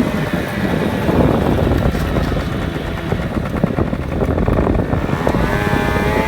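50cc scooter engine running, with a dense rumble and noisy buffeting. About five seconds in, a higher engine note rises in pitch as it revs.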